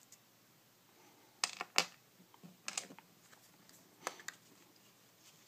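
Small sharp clicks and taps from handling a Maglite's bulb parts and a small plastic bulb case on a table: a close pair of clicks about a second and a half in, the louder one second, then single clicks near the middle and a pair near the end.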